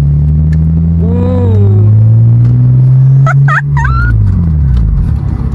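Mitsubishi Eclipse with an Invidia N1 cat-back exhaust accelerating hard, its exhaust note rising steadily in pitch for about three and a half seconds. The pitch then drops at a gear change and the car pulls again.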